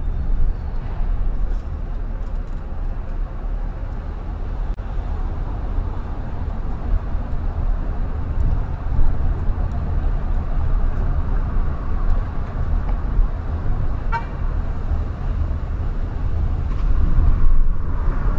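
Steady low road and engine rumble heard inside a car driving through city traffic. About fourteen seconds in there is one short high-pitched beep.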